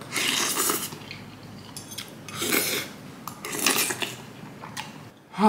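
A person slurping noodles: a long slurp at the start, then shorter slurps about two and a half and three and a half seconds in. A fork and spoon click against a glass bowl.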